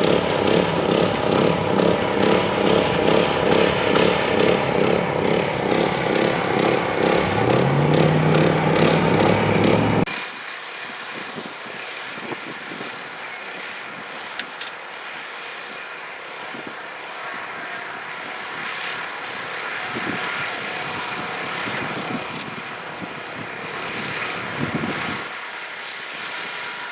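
A nearby engine running with an even pulsing beat, its pitch stepping up about three-quarters of the way through. It cuts off abruptly about ten seconds in, leaving quieter outdoor hum with faint passing traffic.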